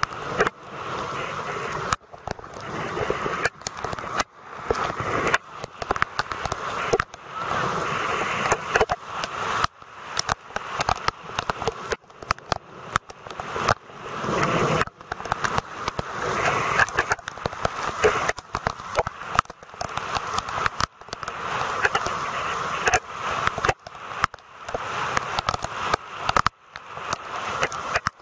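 Rain and rushing floodwater, a steady noisy hiss full of crackles and sharp clicks, which cuts out for an instant again and again.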